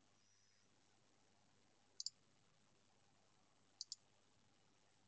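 Computer mouse clicking twice, about two seconds in and again almost two seconds later, each a quick press-and-release pair of sharp clicks over near silence.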